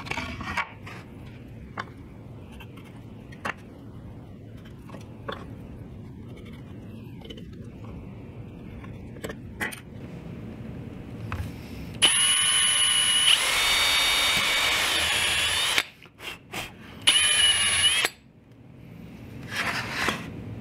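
A few light taps and clicks, then a power drill boring into MDF: its motor whines steadily for about four seconds, stepping up in pitch partway through. It stops, gives a couple of short bursts and a second brief run, then a faint burst near the end.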